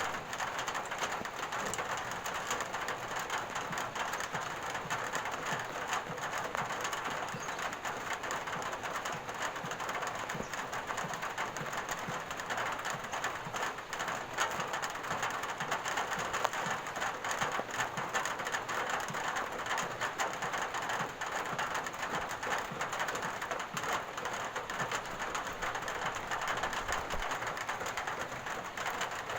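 Steady rain falling on a surface, an even rush of sound with a dense scatter of individual drop impacts throughout.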